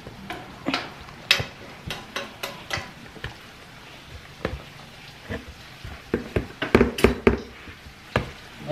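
Hand-held wire potato masher pressing boiled red potatoes in a plastic tub, making a string of irregular knocks and squelches as it strikes the bottom, with quicker strokes near the end.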